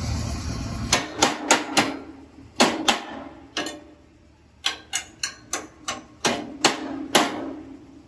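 Hammer blows on a steel door frame: about fifteen sharp knocks, each with a short metallic ring, coming in uneven clusters. A steady rushing noise cuts off about a second in.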